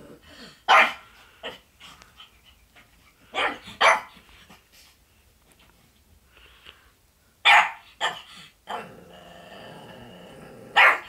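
A pug barking: about half a dozen sharp single barks, in ones and twos a few seconds apart.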